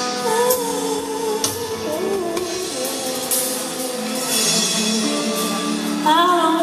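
Live rock band playing a slow ballad with guitar and drum kit, with a singer holding a note with vibrato near the end.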